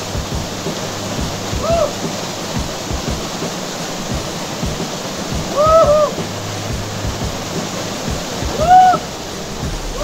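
Small waterfall rushing steadily into a rock pool. Over it come short, loud hooting calls, each rising and falling in pitch: one about two seconds in, a quick pair around six seconds, and one near the end.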